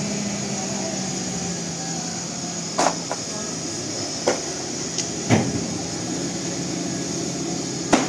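An engine running steadily with a low hum. About five sharp knocks are scattered through it, the loudest near the end.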